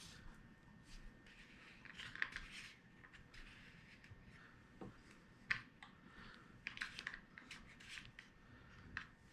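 Faint, scattered clicks and scrapes as a Stihl GTA26 mini chainsaw is handled and its chain-bar tension adjuster is tried, with a few sharper clicks about two, five and a half and seven seconds in.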